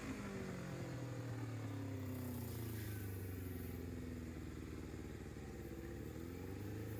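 1995 Kawasaki ZX-750 Ninja's inline-four engine idling steadily, its speed dipping slightly and recovering a couple of times.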